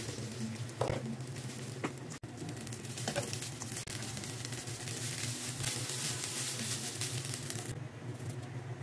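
Cooked rice and fried garlic sizzling in hot oil in a nonstick pan, with a few light knocks of a spatula against the pan. The sizzle drops away sharply near the end.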